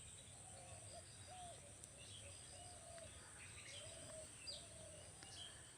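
Faint bird calls: short, low, curving notes repeated several times, with a few high chirps.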